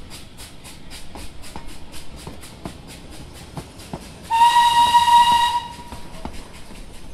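Narrow-gauge steam locomotive working a train, its exhaust beating rapidly at about five beats a second. About four seconds in it gives one steady whistle blast lasting about a second and a half.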